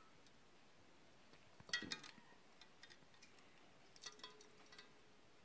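Faint clinks of a wooden dowel knocking against a metal pot and a steel mug, with small splashes and drips as the wax-coated dowel is dipped into melted beeswax and water. The clinks come in two short clusters, about two seconds in and about four seconds in, the second leaving a brief faint ring.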